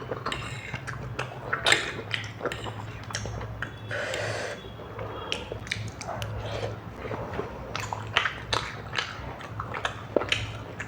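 Close-miked mukbang eating: chewing and slurping spicy noodles, with many small clicks and wet smacks.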